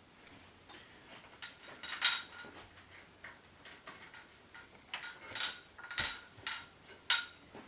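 Metal tripod stand parts being handled and adjusted: a string of sharp metallic clicks and clinks with a slight ring, sparse at first and coming more often and louder from about five seconds in.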